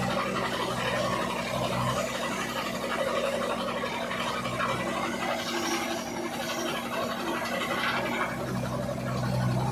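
Diesel engine of a JCB backhoe loader running steadily under hydraulic load while its bucket dumps soil and digs again, with a scraping, spilling sound of earth. The engine hum grows stronger near the end as the bucket bites into the ground.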